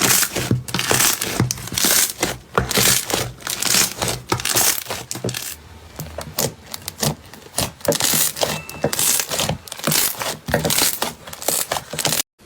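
Rapid, irregular crinkling and crunching, as of something being crumpled or crushed, which cuts off abruptly shortly before the end.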